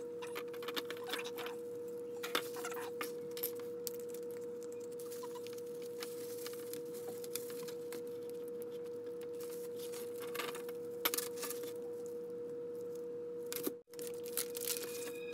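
Light clicks and rustles of clear plastic badge holders and metal lanyard clips being handled and bundled, over a steady humming tone.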